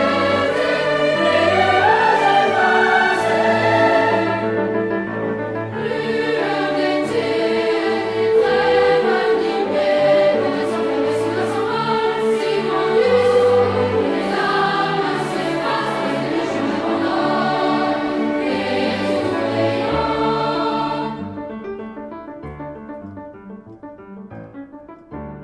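Choral music with voices singing together, fading down near the end.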